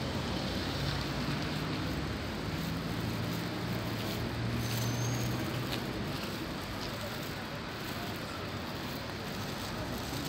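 Steady city traffic noise, with a low engine hum that fades out about halfway through.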